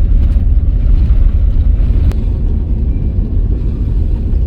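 Wind buffeting the microphone: a loud, uneven low rumble that rises and falls with the gusts, with a faint click about two seconds in.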